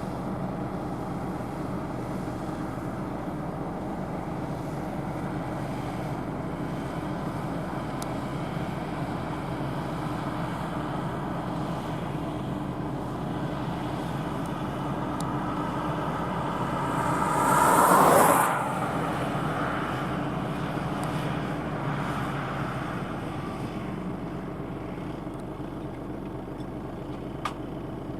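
Kubota M5111 tractor's four-cylinder diesel engine running steadily under load while pulling a mounted plough. It swells to a brief loud peak about two-thirds of the way through, then slowly fades.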